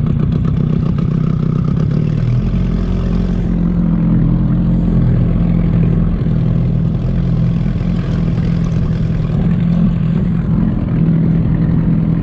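Outboard motor running steadily, driving an aluminium boat along the river; its hum holds an even pitch.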